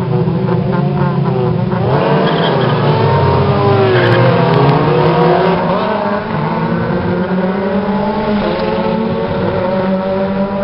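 A grid of Renault Clio Cup race cars revving on the start line, then pulling away together at a standing start. Many engines rise in pitch at once as they accelerate off, starting about two seconds in.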